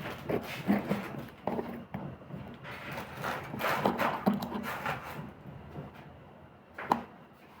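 Handling noises: irregular light knocks and rustles, with one sharp click about seven seconds in.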